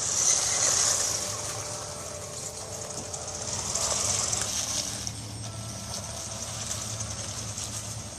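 Vatos 1:12 electric 4WD RC truck driving, its motor and gears whining with tyre noise, swelling louder just after the start and again about four seconds in.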